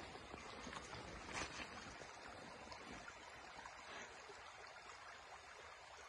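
Faint, even rush of a mountain river's flowing water, with a few soft rustles.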